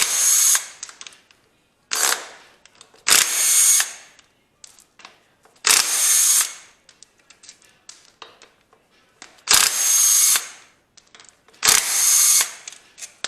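Impact wrench rattling in about six short bursts, a couple of seconds apart, undoing the flywheel bolts on a Lexus IS200's 1G-FE straight-six engine. Faint clicks of the tool and sockets come between the bursts.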